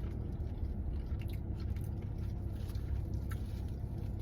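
Close-up chewing and biting of KFC fried chicken, with a few faint crisp ticks from the fried coating. A steady low rumble runs underneath.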